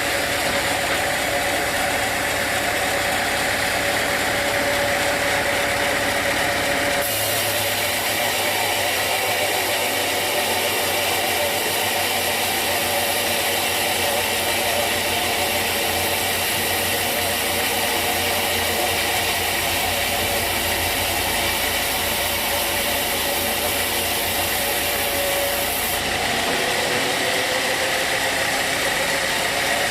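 Sawmill machinery running steadily with a constant hum, its sound changing abruptly about a quarter of the way in and again near the end.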